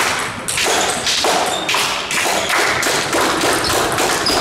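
Table tennis rally: the celluloid ball clicking off the rackets and bouncing on the table, about two hits a second, echoing in a large sports hall.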